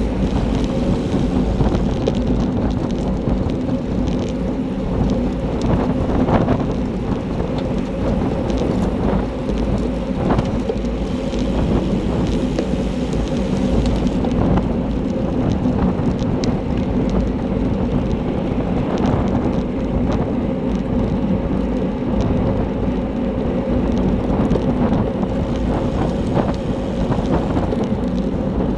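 Wind buffeting the microphone of a handlebar-mounted camera on a racing bicycle: a loud, steady rush and rumble with scattered small clicks.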